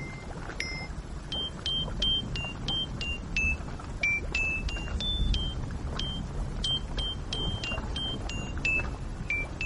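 End-credits music: a sparse melody of short high plucked notes, two or three a second at changing pitches, over a low rumble.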